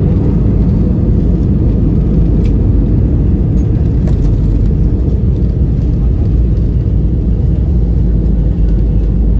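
Loud, steady low roar and rumble heard inside an airliner cabin during the landing rollout just after touchdown: the engines and the wheels running on the runway as the plane slows.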